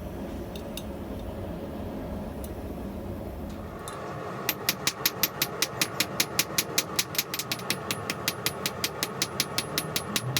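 A steady low mechanical hum, joined about four seconds in by fast, even ticking at about six clicks a second.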